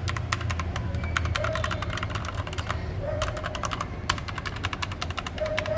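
Mechanical keyboard with keycaps fitted being typed on: rapid runs of sharp key clicks with a couple of short pauses.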